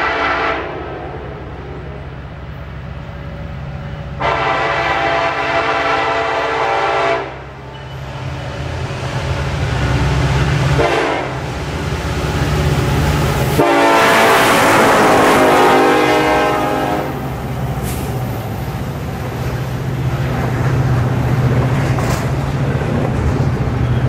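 Norfolk Southern diesel freight locomotive sounding its multi-note air horn as it approaches and passes: a blast ending just after the start, a long blast about four seconds in, a short one near eleven seconds, and the loudest long blast around fourteen seconds as the locomotive comes by, the long-long-short-long grade-crossing signal. Under the horn the diesel engine drones, and after the locomotive passes the double-stack container cars rumble by.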